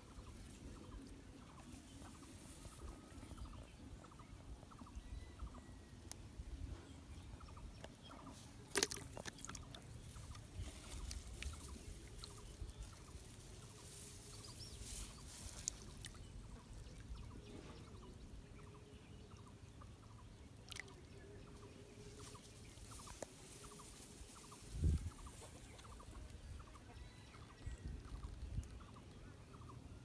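Domestic fowl clucking faintly in the background in short, repeated calls. A sharp click comes about nine seconds in, and a low bump comes near 25 seconds; these are the loudest sounds.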